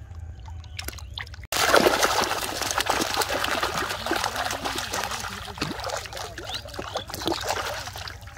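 Hooked fish thrashing at the water's surface: loud, continuous splashing that starts suddenly about a second and a half in and slowly dies down near the end.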